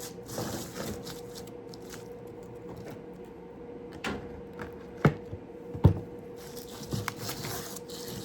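Scattered knocks and clicks of small hard objects being handled and set down, the two sharpest about five and six seconds in, over a steady hum.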